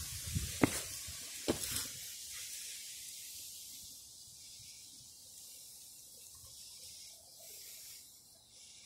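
Handling noise from a handheld camera being moved: a low rumble with two sharp knocks in the first two seconds, then only a faint steady hiss.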